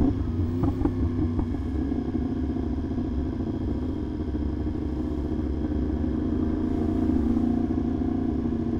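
Yamaha R1 sport bike's inline-four engine running at a steady cruising pace, its pitch holding nearly level.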